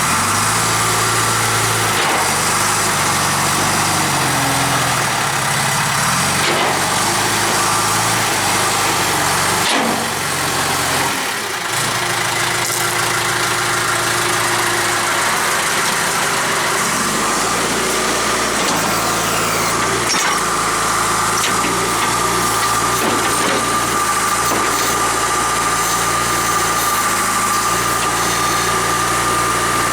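John Deere 310E backhoe's 4.5 L diesel engine running, its speed shifting several times in the first dozen seconds and then settling to a steady run. A steady high-pitched whine joins about two-thirds of the way in.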